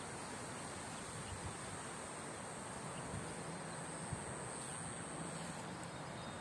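Quiet outdoor ambience by a lake: an even background hiss with a thin, steady high-pitched whine that fades out near the end.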